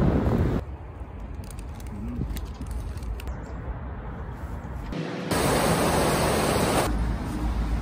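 Outdoor noise in several abruptly cut segments: low rumble with wind on the microphone, and a loud even hiss that takes over for about a second and a half past the middle, then low rumble again near the end.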